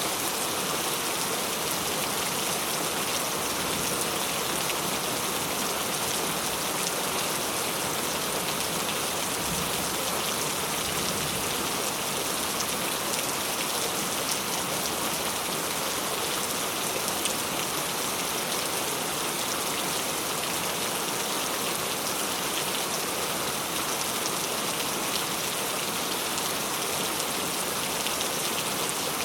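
Steady rain falling, a constant hiss with fine patter of drops and no thunder.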